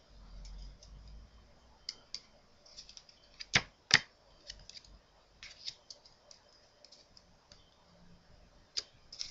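Playing cards handled in the hands: scattered light clicks and flicks, with two sharp, much louder clicks about half a second apart near the middle.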